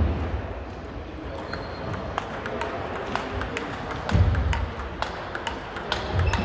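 Table tennis ball clicking against rackets and the table in a rally: a run of sharp, irregular clicks. There are a couple of low thuds at about four and six seconds in.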